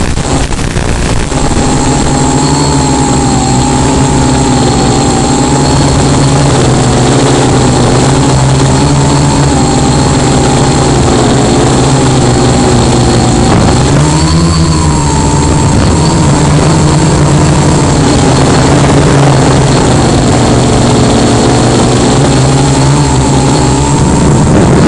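Tricopter's electric motors and propellers droning, heard from on board, with a hiss beneath. The pitch wavers and dips sharply about halfway through, then climbs back.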